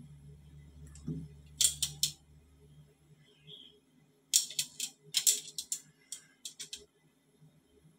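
Pieces of raw fish dropped by hand into a pot of broth, making short, sharp splashes: a few about two seconds in, then a quicker run of them between about four and a half and seven seconds.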